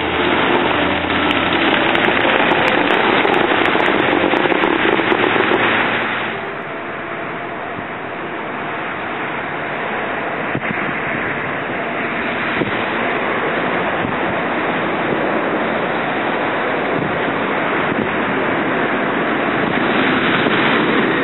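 Fountain water jets spraying, a loud rushing hiss with a scatter of sharp cracks, for about the first six seconds. It then gives way to a quieter, steady outdoor hum that swells again near the end.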